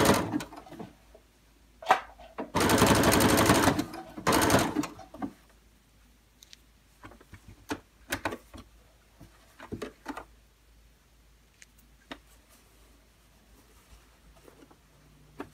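Domestic sewing machine running a zigzag stitch through thick terry towelling in short stop-start runs: one ending just after the start, a longer one of about a second around three seconds in, and a brief one just after. After that, only a few faint clicks.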